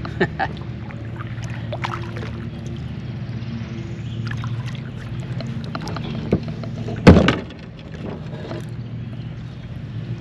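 Handling noises from a plastic kayak: scattered light clicks and one loud, sharp knock on the hull about seven seconds in, over a steady low hum.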